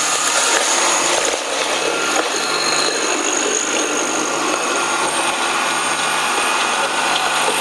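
Colloid mill grinder running steadily while grinding garlic into paste: an even electric-motor drone with a low hum and steady high-pitched tones.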